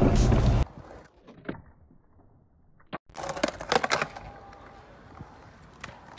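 Skateboard riding a concrete bowl: scattered clacks and knocks of the board and wheels, with a louder run of knocks and scraping about three and a half seconds in. Background music plays for the first half-second and cuts off abruptly.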